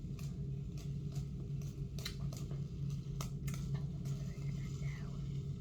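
Irregular light clicks and taps from a plastic pop-it fidget spinner being handled and spun, over a steady low hum.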